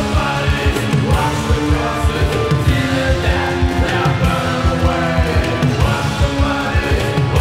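Gothic rock recording with singing over a fast, driving drum beat and bass.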